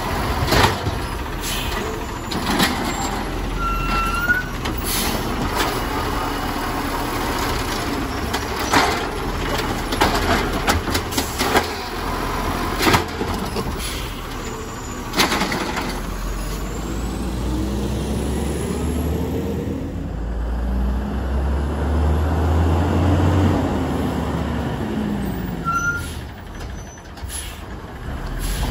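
Natural-gas Peterbilt garbage truck with an Amrep automated side-loader arm: a run of clunks and bangs as the arm shakes out and sets down a cart, then the engine revs up and down as the truck pulls away, loudest a little past the middle.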